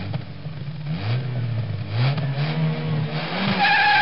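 Car engine revving in a series of short blips, each rising in pitch, then held at steady high revs with a high whine near the end.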